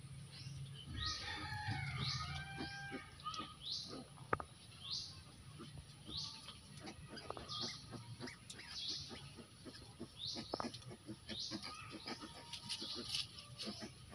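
A small bird's short chirp, repeated over and over about once a second. Piglets rustle and scrabble in dry pen litter beside a resting sow.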